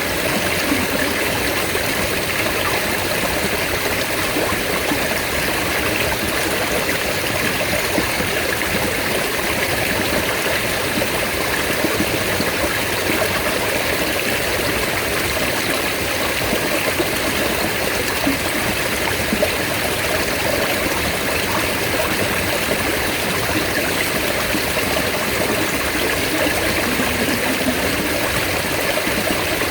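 Mountain stream water running steadily, a constant rushing and trickling without pause.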